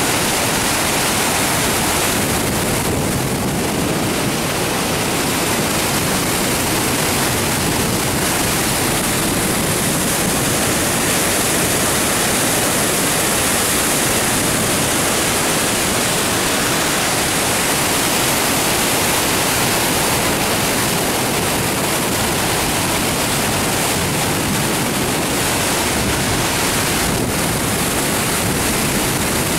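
Muddy floodwater pouring over a dam spillway and crashing into the churning water below: a loud, steady rush of white water.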